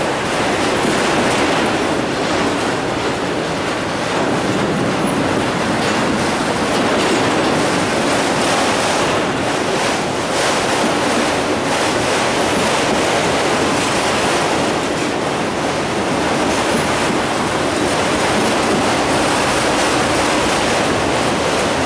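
Freight train of enclosed autorack cars passing close by, the steady noise of steel wheels rolling over the rails with no pause.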